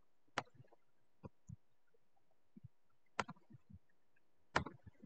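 A few sharp clicks, about a second in, at about three seconds and again near the end, with soft low thumps scattered between them over near silence.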